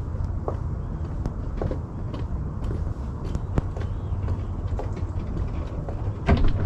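Steady low outdoor rumble with faint, scattered clicks, and a louder clatter of knocks about six seconds in.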